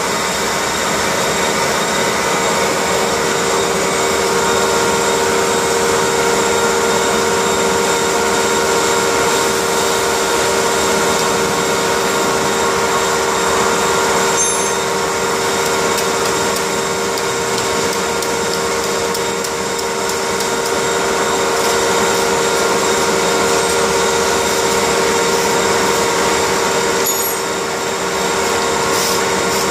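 Commercial laundry machines running: a loud, steady mechanical hum with several constant tones that holds evenly throughout.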